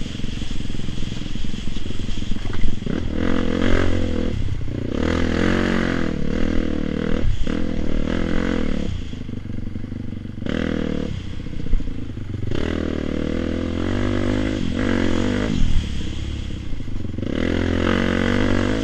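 Dirt bike engine on the move, its pitch rising and falling over and over as the throttle is opened and closed, with brief drops where the rider shuts off between bursts.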